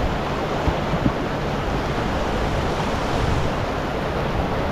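Steady rush of whitewater river rapids, with two light knocks about a second in.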